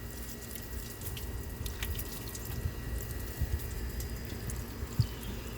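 Water poured over a car battery and its terminals, trickling and dripping as it rinses off the foamed baking soda residue, with one sharp knock near the end.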